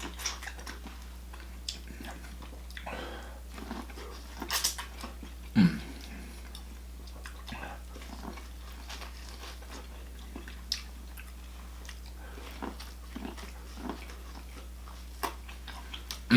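Close-miked eating sounds: chewing and biting seafood boil, with wet mouth clicks and smacks, and a couple of louder bites or slurps about four and a half and five and a half seconds in.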